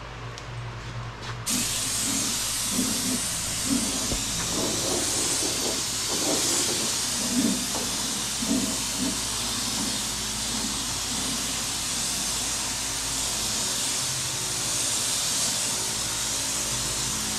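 Gravity-feed paint spray gun hissing steadily as it sprays black paint; the air starts about a second and a half in.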